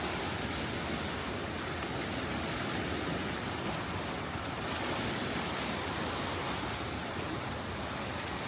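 Sea surf washing on a shore, a steady rush of noise that swells and eases gently.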